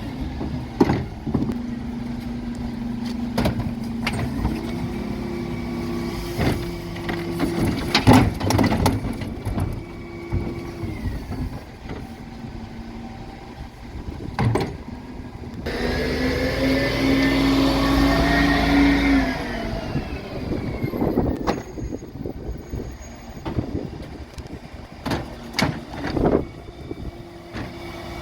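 Dennis Elite 6 refuse truck working a bin lift: the diesel engine runs with its note stepping up for several seconds, with loud bangs and clatter of wheelie bins being lifted and emptied. Over halfway through, a loud whine glides up and down for about four seconds as the hydraulics cycle.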